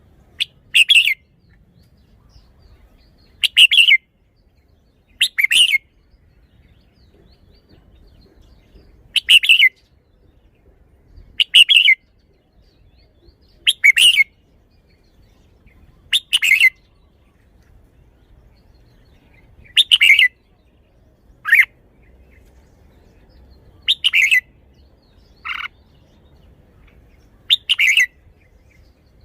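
Red-whiskered bulbul singing: about a dozen short, loud, chirpy song phrases, each around half a second long, repeated every two to three seconds, with one shorter, lower note near the end.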